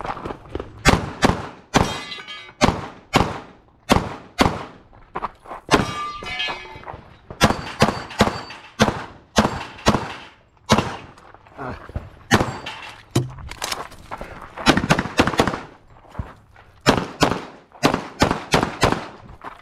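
Semi-automatic pistol fired over and over in quick pairs and short strings, with brief pauses between groups of shots.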